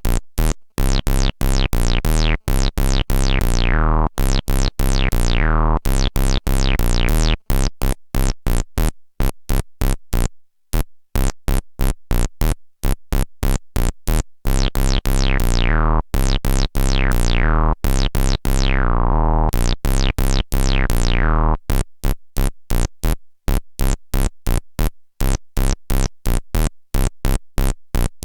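Ad-vantage 03m monophonic analog synthesizer playing a fast repeating sequence of short, punchy notes over a deep bass. Twice, a bright resonant sweep falls steeply across several notes as the filter is turned down.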